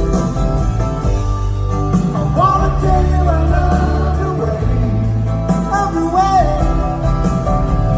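Live rock band playing a soft-rock ballad: steady bass and drums under a wavering lead melody line with vibrato, with no lyrics sung.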